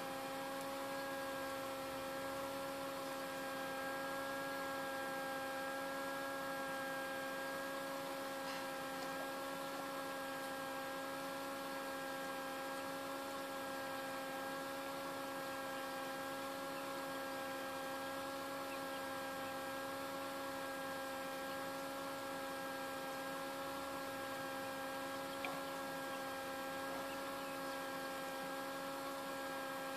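Small egg incubator's fan motor humming steadily, one even electric tone with several higher tones stacked above it. One faint click near the end.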